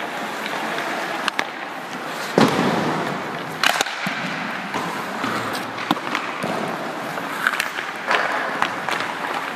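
Ice hockey shooting practice: several sharp cracks of sticks striking pucks and pucks hitting the goalie's pads, net or boards, the loudest about two and a half and three and a half seconds in, over the scrape of skate blades on the ice. Each crack echoes briefly in the rink.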